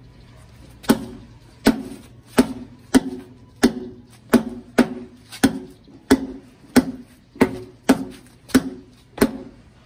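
An extended collapsible baton whacking an old rubber tire as hard as possible. About fourteen sharp strikes come in a steady rhythm of roughly one and a half a second, each with a brief ring after it, as a pressure test of the baton's sturdiness.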